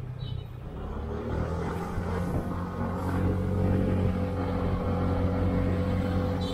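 Honda Click 125i scooter's single-cylinder engine running under way, growing louder over the first couple of seconds and then holding steady.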